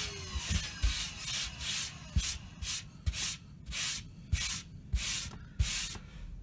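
A hand rubbing back and forth over a hardened patch of all-purpose ready-mix filler to smooth it, in quick scraping strokes about two a second with a few light knocks. The strokes stop shortly before the end.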